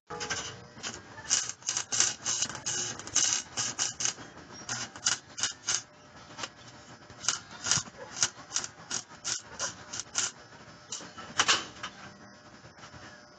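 Rapid, irregular run of sharp clicks or taps, several a second, that stops shortly before the end.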